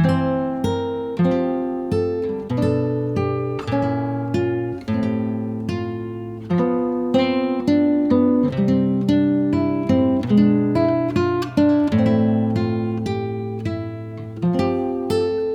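Background music: acoustic guitar picking a steady run of plucked notes, each ringing and fading.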